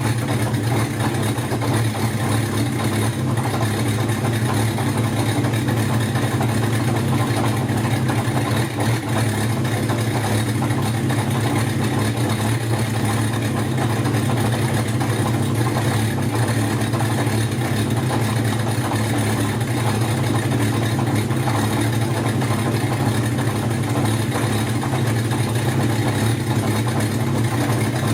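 Kawasaki Zephyr's air-cooled inline-four on racing carburetors, idling steadily with newly fitted Brisk racing spark plugs.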